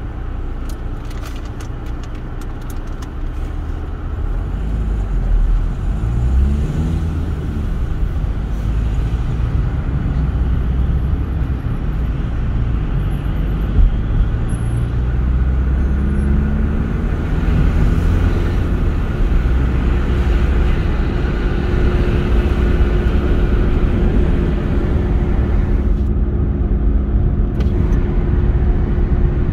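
Car driving along a road: steady engine and tyre rumble, with the engine note rising as the car speeds up about a quarter of the way in and again about halfway through.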